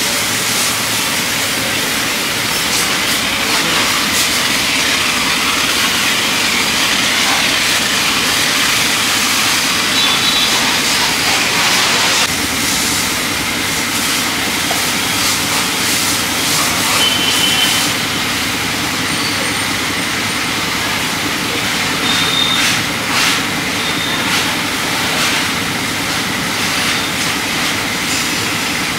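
High-pressure washer spray gun hissing steadily as it jets foam and water onto a car body, with a steady low hum underneath.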